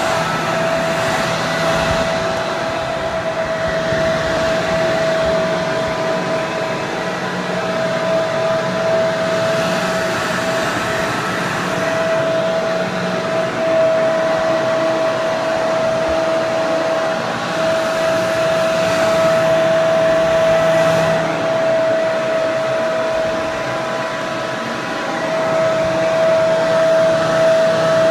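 Hair dryer running steadily: a continuous rush of air with a steady motor whine.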